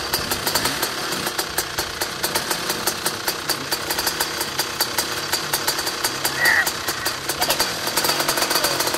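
Enduro dirt bike engine running near idle with rapid, even firing pulses, its revs wavering up and down a little: the throttle cable is broken. A short high squeak about six and a half seconds in.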